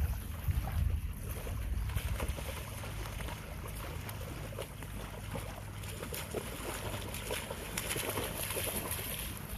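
Wind rumbling on the microphone, with water splashing as a German Shepherd wades through shallow lake water. The splashing is busiest near the end.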